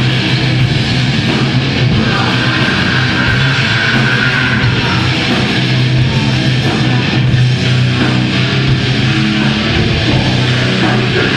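Live heavy metal band playing loudly: distorted electric guitar and drums, with a low note held under much of it.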